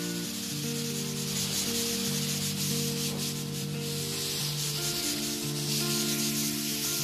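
Pet blow dryer running: a steady rush of air blowing through a long-haired cat's fur. Background music of slow held notes plays under it.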